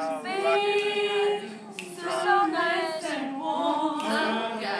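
A small group of young women singing together, unaccompanied, with several notes held.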